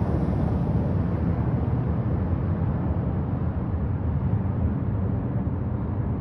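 Airliner engine noise from overhead: a steady low rumble that grows duller as the aircraft draws away.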